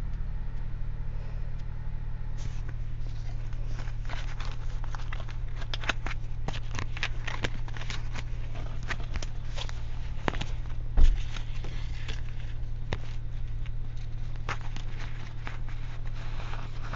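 A steady low hum with many faint scattered clicks and one louder thump about eleven seconds in.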